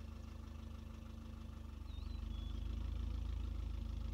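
A vehicle engine idling steadily, a low even hum that grows a little louder about halfway through. A single short bird chirp sounds about two seconds in.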